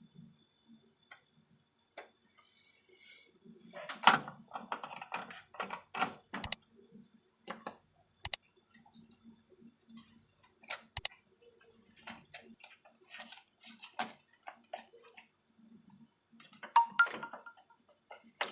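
Irregular clicks, clinks and light knocks of small metal parts and hand tools being handled, with several sharp clicks standing out.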